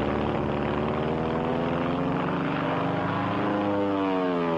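Propeller-driven piston aircraft engine droning steadily, its pitch rising about three seconds in and starting to fall again near the end, as a plane swings past.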